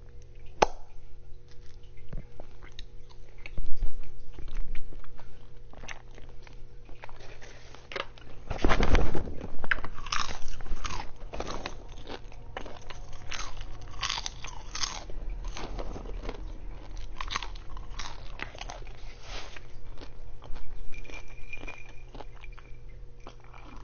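A person biting and chewing crunchy food close to the microphone, with many irregular loud crunches; the loudest bites come about 4 and 9 seconds in.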